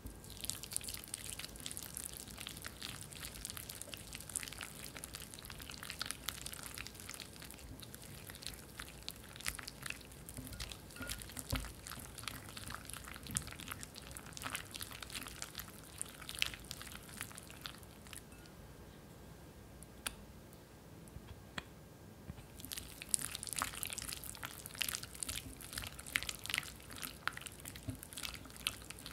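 Wire whisk beating softened cream cheese in a glass bowl: quick squelching, scraping strokes of the wires through the thick cheese and against the glass. The strokes stop for a few seconds about two-thirds of the way through, then resume.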